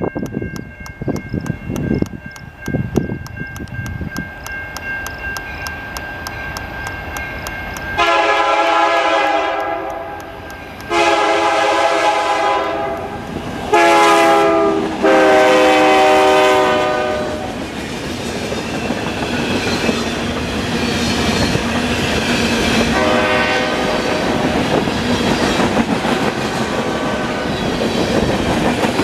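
A crossing bell rings rapidly. Then the SD60 diesel locomotive's air horn sounds two long blasts, a short one and a long one, the grade-crossing signal. The freight train then rolls past at speed, its wheels clacking over the rail joints.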